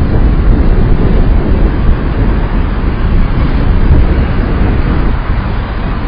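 Wind buffeting the camcorder microphone: a loud, fluttering low rumble.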